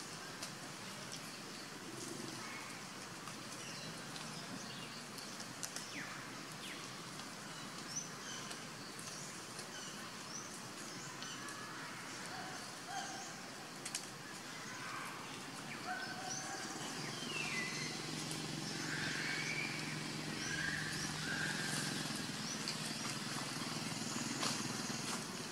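Outdoor tree ambience: scattered short high animal chirps and small clicks over a steady hiss. A low steady hum comes in a little past halfway, and the overall level rises with it.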